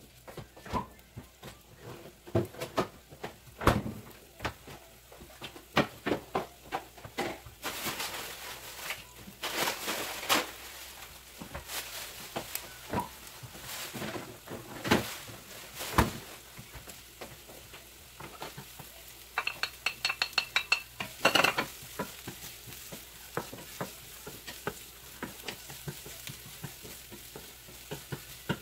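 Diced onions sizzling in a nonstick frying pan, with a wooden spatula scraping and tapping against the pan in irregular clicks and a quick rattling run about two-thirds through.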